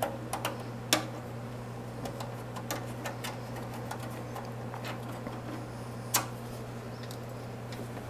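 Scattered small clicks and knocks of hardware being handled inside an open desktop PC case, the loudest about a second in and again about six seconds in, over a steady low hum.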